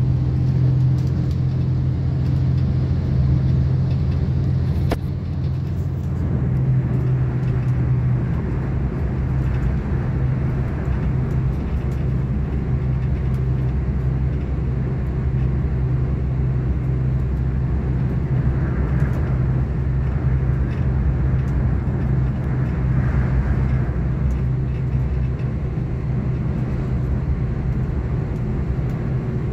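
Inside the carriage of a V/Line diesel passenger train running at speed: a steady low drone of the train with wheel and track noise, unbroken throughout.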